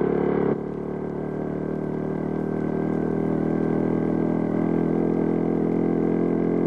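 Cartoon motorcycle engine sound effect: a steady, pitched drone that drops in level about half a second in and then slowly grows louder.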